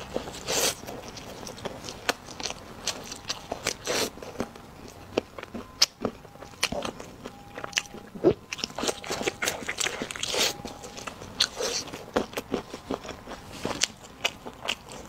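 Close-up eating sounds of biting and chewing meat off braised pork ribs, with many sharp, irregular clicks and crunches.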